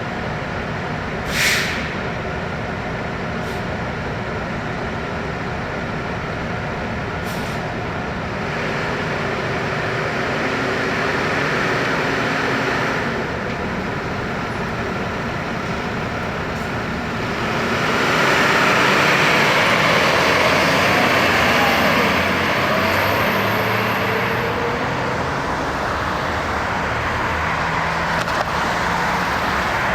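Fire engine's diesel engine running as the truck moves through traffic, growing louder about eighteen seconds in. About a second and a half in there is a brief sharp hiss.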